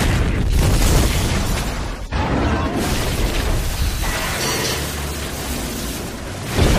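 Film sound effects of an explosion: a sudden boom, then a rumble and crash of falling debris as an armoured truck drops through the street. A fresh loud crash comes about two seconds in and another near the end.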